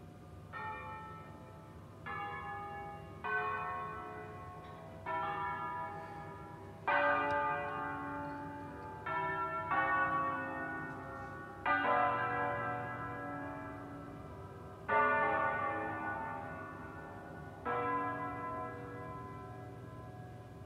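Church bells of the basilica of Sant'Alessandro in Colonna played as a slow melodic bell concerto. The bells are struck one at a time, about ten strokes of differing pitch, each ringing on and fading before the next, starting about half a second in.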